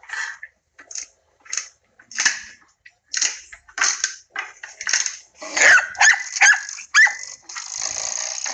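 French bulldog giving a series of short vocal sounds, about one a second, with a few higher whine-like ones a little past the middle. A steady hiss comes in for about the last second.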